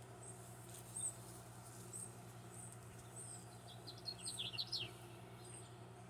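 Small birds chirping: a thin, very high peep repeats about every 0.7 s, and a short, quick run of falling notes comes about four seconds in. A steady low hum runs underneath.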